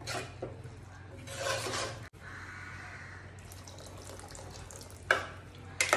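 Steel ladle stirring chopped vegetables in an aluminium pressure cooker, then water poured from a plastic jug into the cooker in a steady splashing stream for a second or two. Two sharp knocks near the end.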